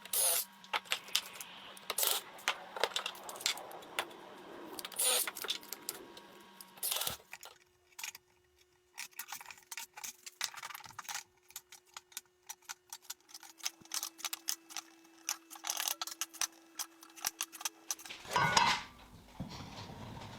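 Irregular sharp clicks and light taps of small hard objects being handled, in scattered groups with a louder cluster near the end, over a faint steady hum.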